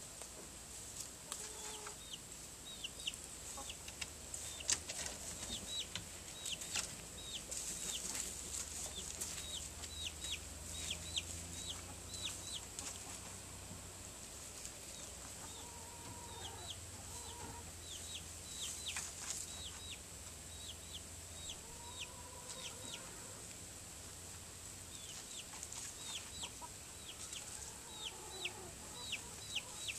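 Chickens clucking and calling in their run, with runs of short, high, falling chirps throughout and a few longer drawn-out calls.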